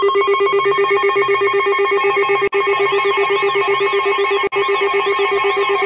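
NOAA weather radio sounding its alert alarm for an incoming flash flood warning: a loud, rapidly pulsing electronic tone, joined about halfway through by a warbling siren-like sweep going up and down. It cuts out for an instant twice.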